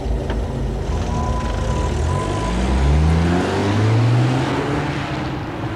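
Car engine running low and steady, then accelerating about two seconds in, its note rising as a hiss grows, as the car pulls away.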